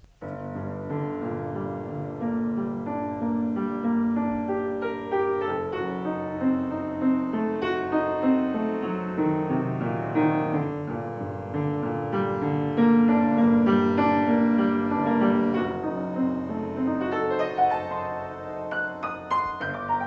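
Background piano music: chords with a melody of single notes over them.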